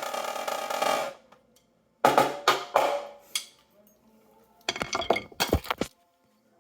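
Drums being played: a fast roll of rapid strokes that stops about a second in, then a few separate hits, and a short burst of strokes near the end.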